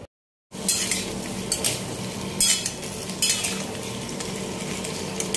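Pumpkin pieces frying in hot oil in a wok, sizzling steadily while a steel spatula stirs them and scrapes against the pan about five times. It begins after half a second of silence.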